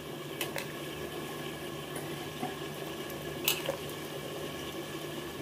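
Pot of khichdi water, with rice and moong dal, heating toward a boil: a steady bubbling hiss with a few small clicks, the sharpest about three and a half seconds in.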